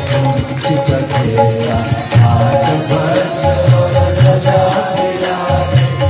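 Live devotional bhajan music: a harmonium holding chords over a steady tabla rhythm with deep bass-drum strokes, and sharp claps or small cymbal strikes keeping time.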